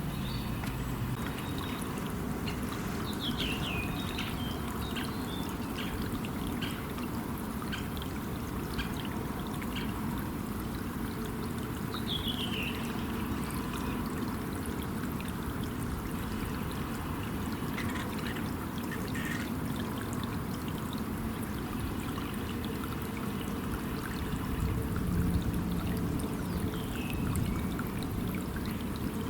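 River water running steadily, with a few short bird chirps about three seconds in, about twelve seconds in and near the end.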